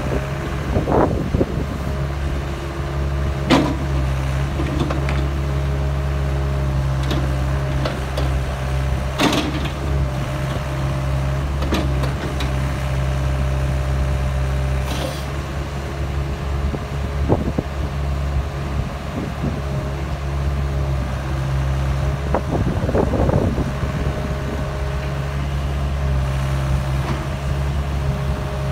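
Doosan DX85R-3 excavator's diesel engine running steadily while the boom, arm and bucket are worked on the hydraulics, with occasional sharp knocks from the working gear.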